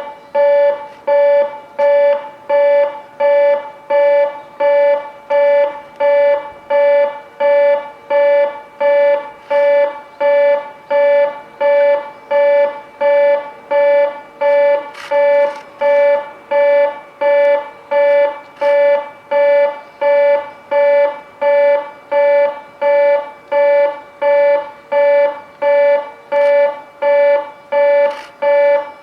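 Railway station platform train-approach warning alarm: a loud electronic beep that repeats steadily, about five beeps every four seconds, warning that a train is approaching.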